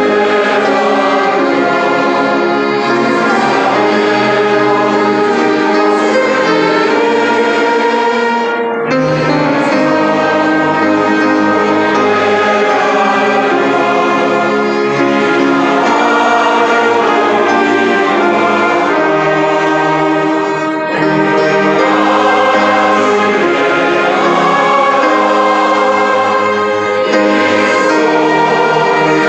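A church orchestra of strings and winds playing a sustained, classical-style piece, with brief breaks between phrases.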